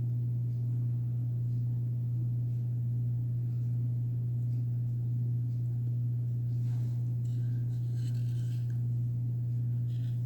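Steady low hum, with a few faint light clicks and scrapes about seven to nine seconds in.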